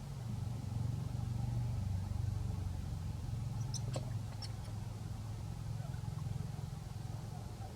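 A steady low motor hum, with a few faint high clicks about halfway through.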